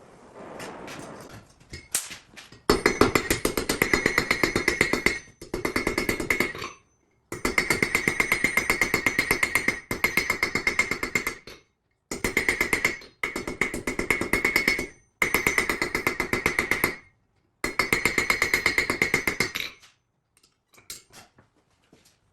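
Power hammer striking metal in rapid, even, ringing blows. It comes in seven short runs with abrupt cuts between them, and a few lighter knocks at the start and end.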